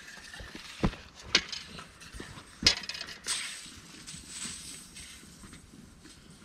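Handling of a tape measure and rubber boots stepping on a concrete footing: four sharp clicks and knocks in the first three and a half seconds, the loudest about two and a half seconds in, then faint scuffing.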